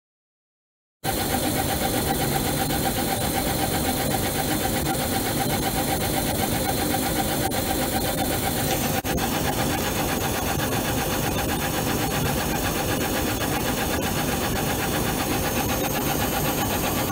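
Laser engraver running as it engraves circuit tracks into a clear plastic sheet: its head sweeps rapidly back and forth, giving a steady mid-pitched whine with a quick flutter over a constant rushing noise. It starts about a second in and briefly dips about nine seconds in.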